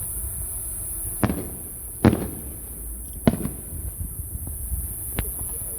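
Fireworks bursting: four sharp bangs a second or so apart, each trailing off in a rumbling echo, the second the loudest and the last the weakest, over a steady low background rumble.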